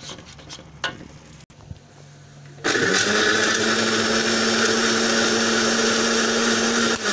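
A few faint clicks, then nearly three seconds in a Panasonic countertop blender switches on and runs steadily at full speed with a constant motor hum, grinding fresh turmeric into a paste.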